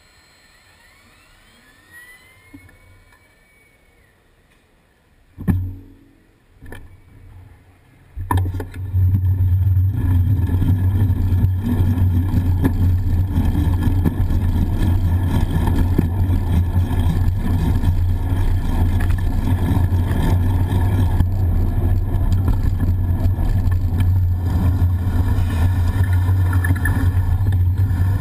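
Quiet street traffic with a couple of brief knocks, then, about eight seconds in, a loud steady rumble of wind and road noise as the bicycle gets moving, picked up by a handlebar-mounted action camera.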